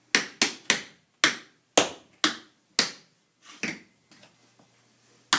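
Tap shoes striking a hard floor through a tap combination of jump, shuffle, jump, step, scuff, hop, step: about seven sharp, echoing taps in the first three seconds, then a few softer scrapes and taps as the dancer bends and turns, and one sharp tap near the end as she comes down.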